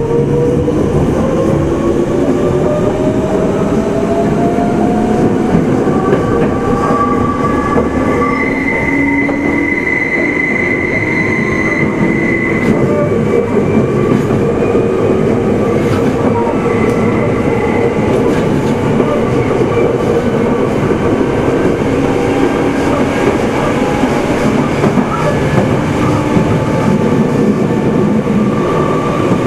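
Running sound aboard a Meitetsu 6000 series motor car: the traction motor and gear whine rises in pitch as the train accelerates over the first several seconds, then settles into steady running noise. A high wheel squeal sounds from about eight to thirteen seconds in.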